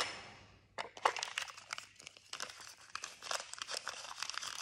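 A small plastic toy capsule knocks down sharply on a wooden floor, then plastic packaging crinkles and rustles in the hands with many quick crackles while a small toy pack is handled and opened.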